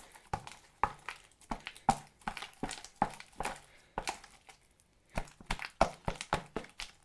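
Homemade slime being kneaded and stretched by hand: a rapid, irregular series of clicks and pops, with a short lull a little past the middle.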